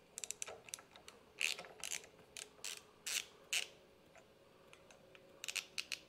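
Hand ratchet turning a 5 mm hex bit, clicking in short runs, about four bursts, as the clamp bolts of a motorcycle clutch lever are loosened.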